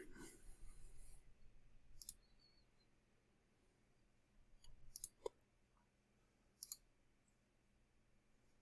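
Faint computer mouse clicks: one about two seconds in, a close pair near the middle, and one more about a second and a half later.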